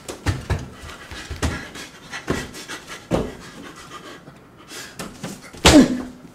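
A person's breathy gasps and cries, each one falling in pitch, coming about once a second; the loudest comes near the end, then the sound cuts off abruptly.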